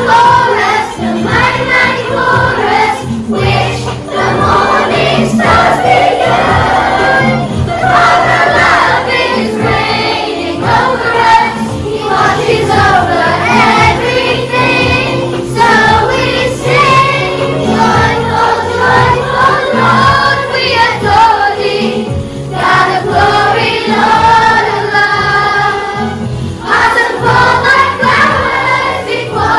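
A children's choir singing a gospel song with musical accompaniment.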